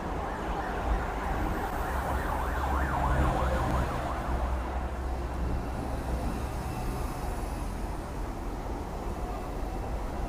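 Siren of a passing Dennis fire engine, quickly rising and falling in pitch, loudest in the first few seconds and then fading as it moves off. Under it is a steady low rumble of the tram and road traffic.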